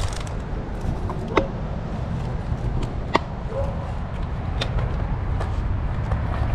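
Steady low rumble of a pot of water boiling on the stove, with a few sharp clicks scattered through.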